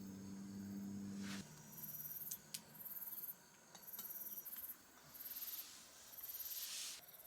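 Insects trilling in repeated high-pitched bursts, about one a second, faint in the evening quiet, with a few light clicks and a low hum that stops about a second and a half in.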